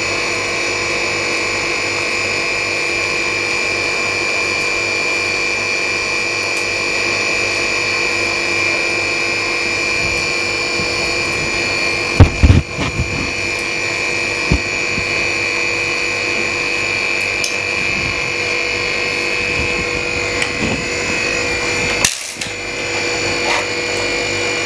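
LCD freezer separator machine running with a steady whine made of several fixed tones. There are a few short knocks about halfway through and again near the end.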